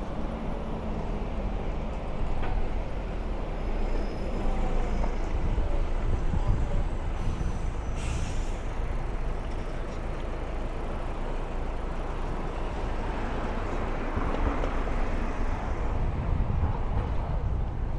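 Street traffic: vehicles running and passing, rising and falling in level, with a brief hiss about eight seconds in.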